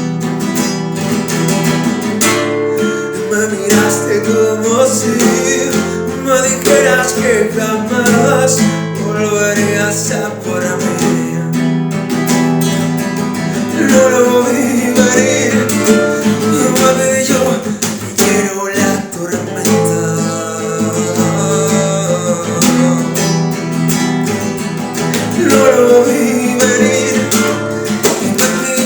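Music: strummed acoustic guitar with a melody line played over it, as a guitar passage between sung verses.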